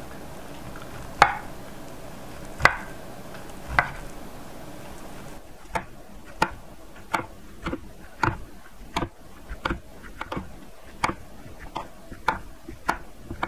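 Kitchen knife slicing through a rolled egg crepe, each cut ending in a knock of the blade on a wooden cutting board: three slow, separate cuts, then a quicker run of cuts at about two a second.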